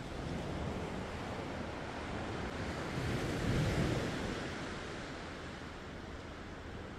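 Ocean surf: waves washing and breaking over rocks, swelling louder about three to four seconds in.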